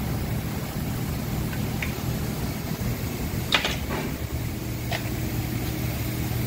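Steady workshop hum with a few light metal clicks as engine parts are handled by hand, and one sharper knock about halfway through.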